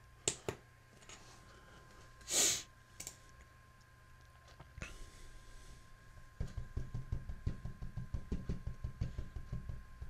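Two quick mouse clicks at the start, a short loud hiss about two and a half seconds in, then from about six and a half seconds a fast, irregular run of light clicks and taps.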